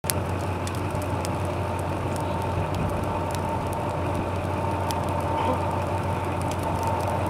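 Fire roaring steadily with scattered sharp crackles and pops.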